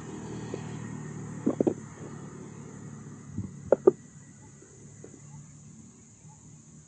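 Two clusters of sharp clicks or knocks, about a second and a half in and near four seconds in, the second the loudest, over a low steady rumble that fades out after about four seconds.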